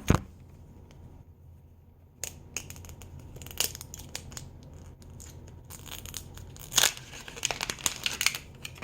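Packaging being torn open and crinkled by hand: after a quiet start, a long run of crackling, rustling tears, loudest a little before the end.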